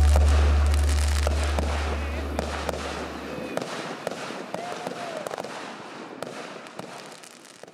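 Fireworks going off, with many sharp pops and crackles, while a held low music note dies away over the first few seconds; the whole sound fades steadily down.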